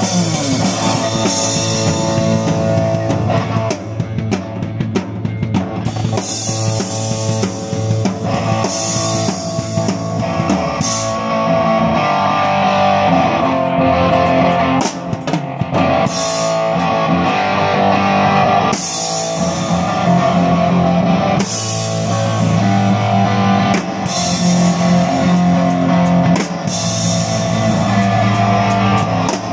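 Rock band playing: a drum kit with cymbals under guitars, loud and continuous.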